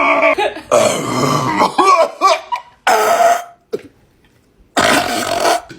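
A person burping and coughing from gulped carbonated Sprite. A run of pitched, wavering burps comes in the first two and a half seconds, then two short harsh bursts about two seconds apart with a pause between them.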